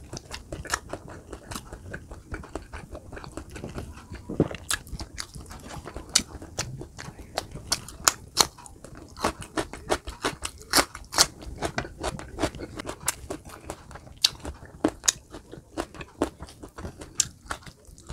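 Close-up eating sounds: chewing and biting into roast chicken with crisp, slightly charred skin, with many sharp, irregular crunchy clicks and smacks.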